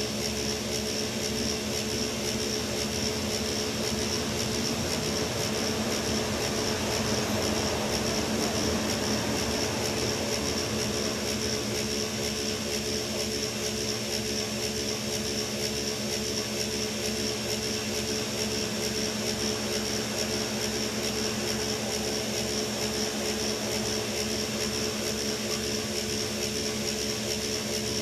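Dump truck's diesel engine idling steadily, heard from inside the cab, with an even low pulsing and a steady high whine over it.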